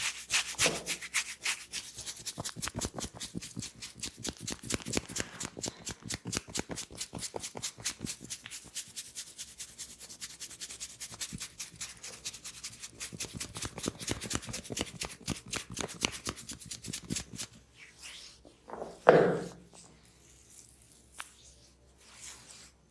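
Hands rubbing briskly over a person's head during a head massage, in quick rhythmic strokes, several a second, that stop a few seconds before the end. Shortly after they stop there is a single louder thump.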